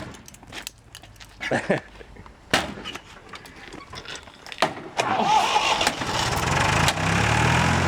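A car engine starting. Scattered clicks and knocks come first, then about five seconds in a steady, louder running noise begins.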